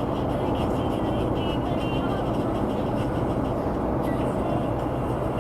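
Steady road and engine noise from a car cruising at highway speed, an even rumble with no sudden events.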